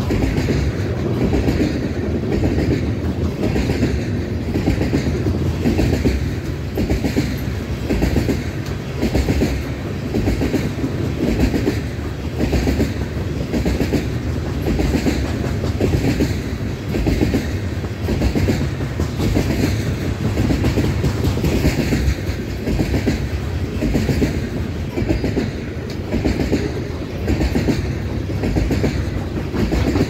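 Freight train cars rolling past close by: a steady rumble of steel wheels on rail with a repeating clickety-clack about once a second.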